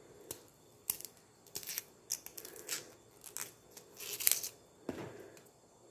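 A small blade scraping and peeling the tough outer layer off a lemongrass stalk: a series of short, crisp, irregular strokes, the loudest a little past four seconds in.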